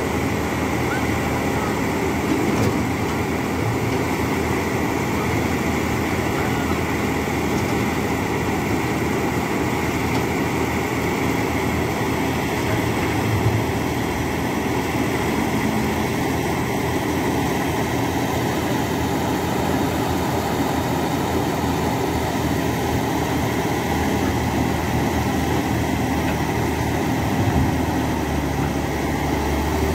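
Caterpillar hydraulic excavator's diesel engine running steadily, an even drone with no revving.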